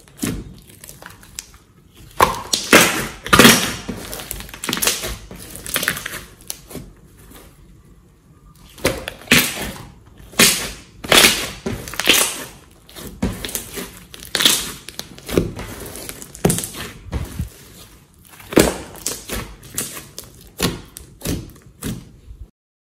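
A large glossy slime being kneaded, squeezed and poked by hand, giving irregular wet squelches in clusters with short quieter pauses. It cuts off suddenly near the end.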